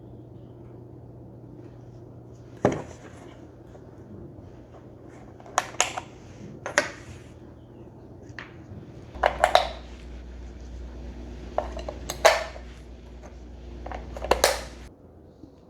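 Irregular sharp clicks and clatter of hard objects being handled, over a steady low hum that drops lower about nine seconds in and cuts off near the end.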